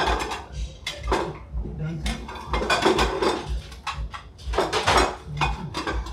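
Ceramic plates clinking and clattering as they are set down on a table and lifted in quick succession, with many short sharp knocks.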